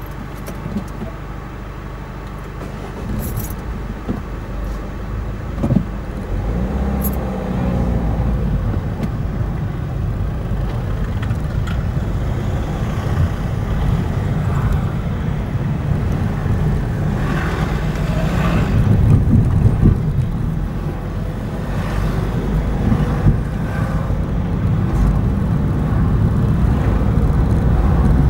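Car engine and road noise: the car sits in a queue, then pulls away and drives on, growing louder from about six seconds in.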